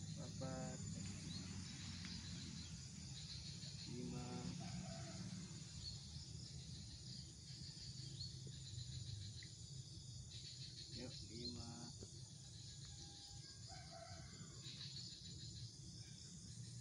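Rural outdoor ambience: a steady high chirring of insects over a low steady rumble, with a few short distant pitched cries, near the start, about four seconds in and again about eleven seconds in.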